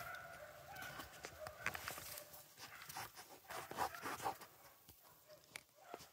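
Rabbit-hunting hounds baying on the chase, faint and in short broken cries, a sign that they are still on the rabbit's trail.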